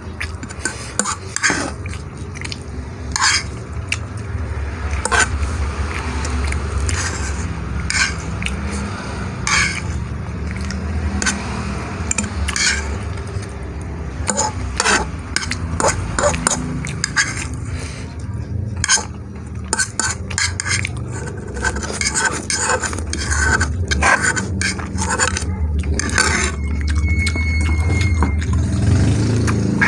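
A metal fork clinking and scraping against a bowl in repeated short, irregular clicks while noodles are eaten. A steady low rumble runs underneath and grows louder near the end.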